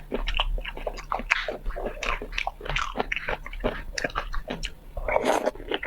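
Close-miked mukbang eating: a person biting and chewing food with a rapid, irregular run of wet clicks and small crunches.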